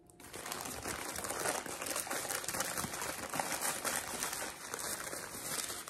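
Wrapping crinkling and rustling continuously as it is handled, a dense crackle that starts just after the beginning and stops near the end.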